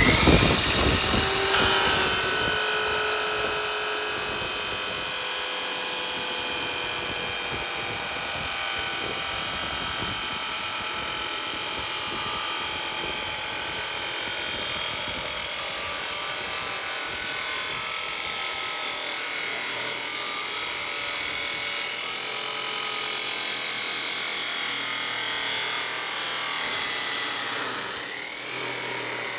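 Cordless power tool cutting through a length of steel exhaust pipe. It spins up, runs steadily with a high-pitched whine and grinding hiss, then winds down near the end.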